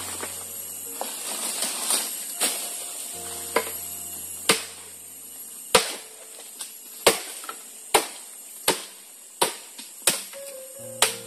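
A blade chopping into wood, a run of about nine sharp strokes roughly a second apart, over background music.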